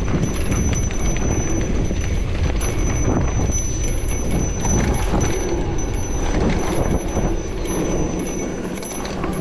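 Electric mountain bike riding fast over a dirt forest trail: a steady rumble of tyres and wind with the bike clattering and rattling over bumps, and a thin steady high whine throughout.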